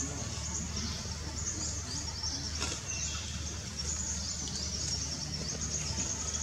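Outdoor ambience dominated by a steady, high-pitched insect chorus over a low rumble, with a faint click about two and a half seconds in.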